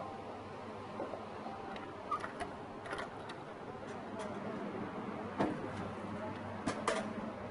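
Fresh orange juice vending machine running through its squeezing cycle: a steady low hum with scattered mechanical clicks and knocks, the sharpest about five and a half seconds in and two close together near the end.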